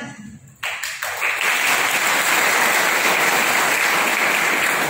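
Audience applauding: a crowd's clapping starts about a second in and holds steady.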